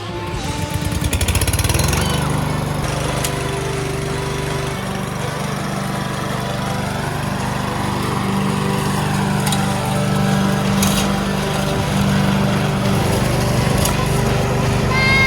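Petrol push lawn mower engine running steadily while mowing, its level building up over the first couple of seconds and then holding.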